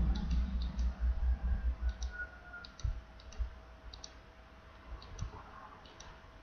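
Computer mouse button clicking at an uneven pace, about one or two clicks a second, as letters are picked one at a time on an on-screen keyboard. A low rumble underlies the first two seconds.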